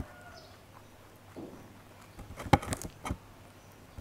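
Rabbit biting and crunching a raw cauliflower floret close to the microphone: a quiet stretch of chewing, then a few sharp crunches about two and a half and three seconds in.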